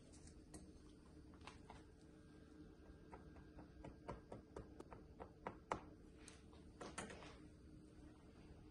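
Fork pricking a raw pastry crust in a fluted tart pan: a run of faint, sharp taps, about a dozen, bunched in the middle few seconds, over a faint steady hum.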